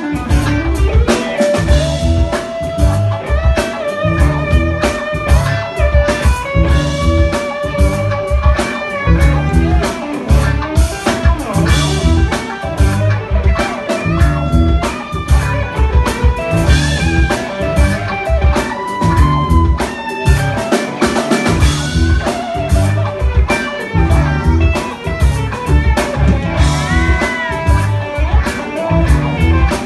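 A band playing a steady instrumental groove on drum kit and guitar, with a heavy low end keeping an even rhythm.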